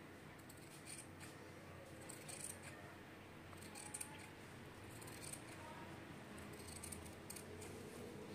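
Tailoring scissors cutting through cloth along a chalked blouse pattern: a series of faint, crisp snips at an uneven pace.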